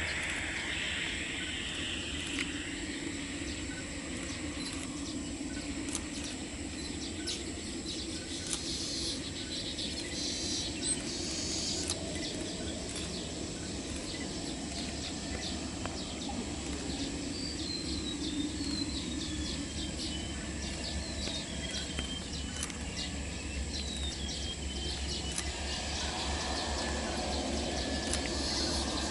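Outdoor ambience: a steady low rumble with birds chirping over it. In the second half there is a run of short chirps that step down in pitch.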